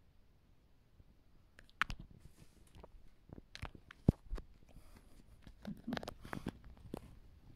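Bengal kittens scrabbling and pouncing around a nylon play tunnel: scattered taps, knocks and rustles of paws and claws on the tunnel fabric and rug, starting a little under two seconds in, with a sharp knock about four seconds in as a kitten comes close.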